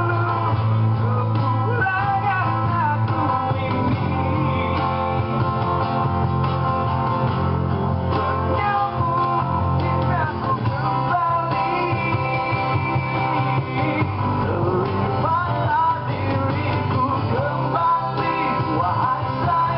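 A live band playing a song: a man singing over acoustic and electric guitars, steady throughout.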